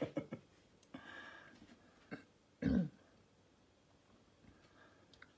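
Quiet room with the fading tail of a person's voice at the start, then a person's short throat-clearing sound about two and a half seconds in.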